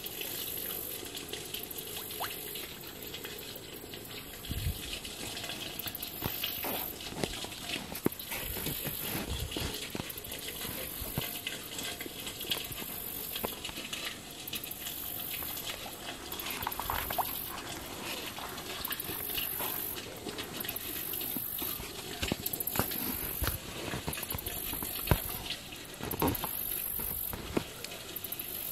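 Fish rising and feeding at the surface of a pond: small irregular splashes and slurps on the water, dozens over the stretch. A high buzz pulses on and off every second or two behind them.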